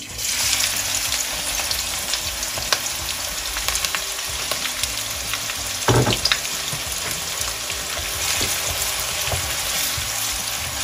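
Chopped onion frying in about half a cup of hot oil in a wok: a steady sizzle that starts suddenly as the onion goes in, with one knock about six seconds in. Near the end a wooden spatula stirs the onion through the oil.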